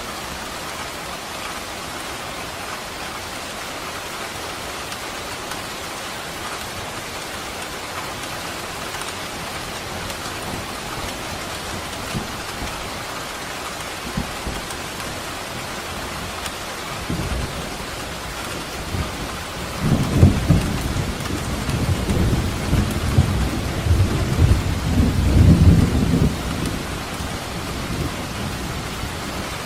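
Steady rain falling, with a rumble of thunder building about two-thirds of the way in, loudest for several seconds, then fading back to the rain.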